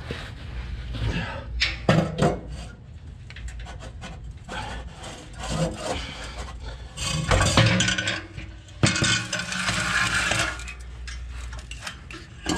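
Metal knocks, clinks and rubbing as the car's exhaust pipe is worked free under the car and lowered to the floor, with a louder stretch of scraping and clanking in the second half.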